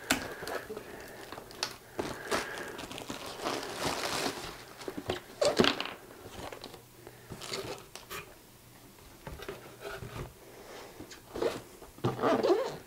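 Cardboard box and packaging being handled and opened by hand: irregular crinkling, rustling and knocks, loudest about five seconds in and again near the end.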